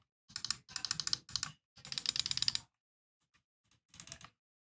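Buttons of a Logitech G303 Shroud Edition wireless gaming mouse, which uses Omron switches, being clicked in quick runs of many sharp clicks. The clicks pause briefly past the middle, then a shorter, quieter run comes near the end.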